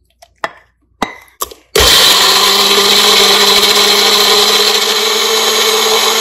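A few light knocks of a wooden spoon as softened fried onions are scraped into a blender jar. About two seconds in, an electric blender starts abruptly and runs steadily at high speed, grinding the onions to a paste.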